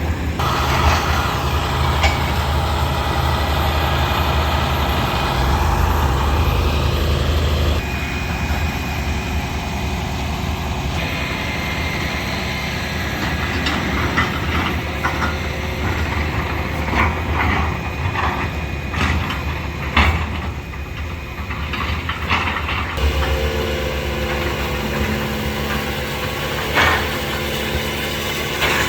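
Heavy machinery's diesel engine running steadily, with scattered sharp knocks and snaps partway through.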